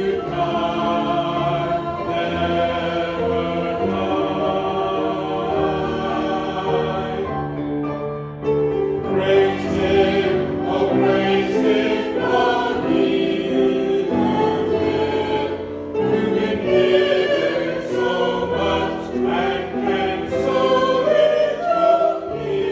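Church choir singing a hymn in sustained, chord-like notes, with a brief break about eight seconds in before the singing swells again.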